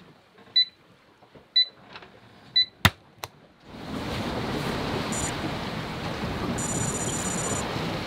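Digital alarm clock beeping once a second, three beeps, then a sharp click as it is switched off a little under 3 s in. Soon after, a steady rushing of wind and sea sets in, with a few faint high electronic beeps near the end.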